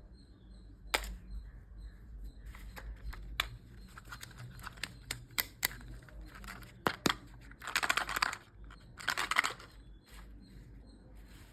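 Candy packaging being handled and opened: scattered sharp clicks and taps of plastic, with two longer bursts of crinkling wrapper in the second half.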